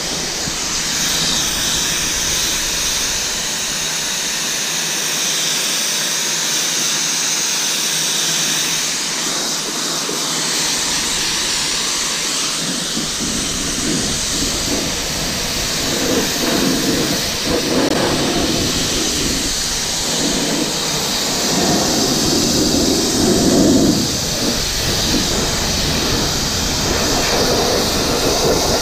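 Kranzle 1122TST electric pressure washer spraying a water jet through a 40-degree nozzle against the car's lower body and underbody: a steady hiss of spray. About halfway in, the spray gets louder and more uneven, splattering as it hits different surfaces.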